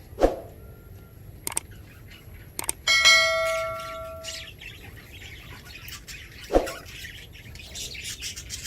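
Pet budgies chirping, with a small bell struck once about three seconds in and ringing out for about a second and a half.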